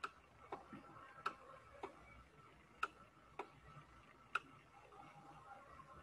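Faint, sharp ticks of a stylus tapping on a pen tablet while letters are handwritten, about seven of them, several in quick pairs, stopping about four and a half seconds in.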